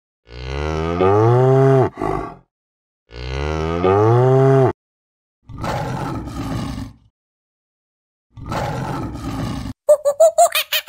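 A cow mooing twice, two identical long moos rising in pitch. Then two rough, growling lion roars, and near the end a rapid run of squeaky calls, about six a second, begins.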